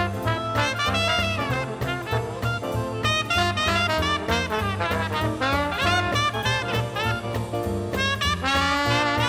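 Small traditional jazz band playing a swing tune live, with trumpet and trombone lines over piano, string bass and drums and a steady pulsing bass.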